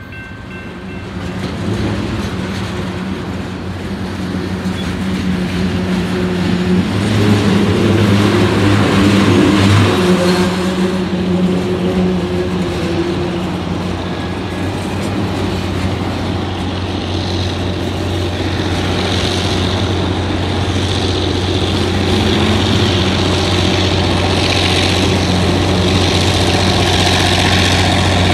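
Freight train rolling past close by: tank cars and hoppers rumbling and clattering over the rails, under the steady low drone of a diesel locomotive engine that grows louder toward the end as a mid-train locomotive nears.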